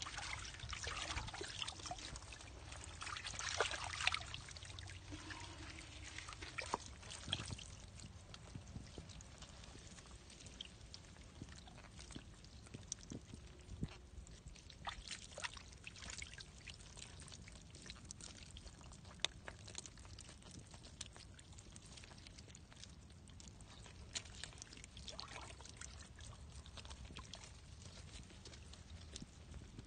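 Wet mud squelching and crackling, louder in the first few seconds as a hand scrapes through it. Later come faint, scattered wet clicks and squelches as a mass of eel-like fish wriggle in the mud.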